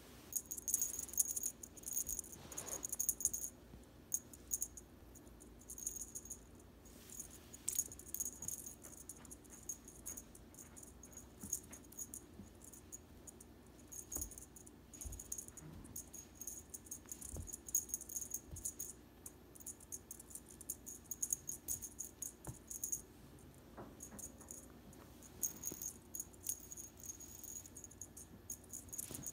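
A cat's feather wand toy jingling and rattling in quick irregular shakes, stopping and starting again, as the cat bats at it.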